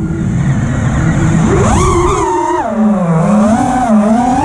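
5-inch FPV quadcopter's T-Motor F60 Pro IV brushless motors and Ethix P3 propellers, first held near idle with mostly a low rush of air while the quad is inverted, then punched about a second and a half in into a rising whine that keeps wavering up and down in pitch with the throttle.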